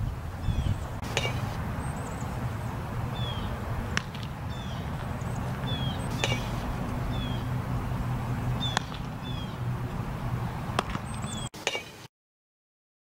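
Outdoor ball-field ambience: a steady low rumble of wind on the microphone, small birds chirping, and a handful of sharp knocks a couple of seconds apart. It cuts off abruptly near the end.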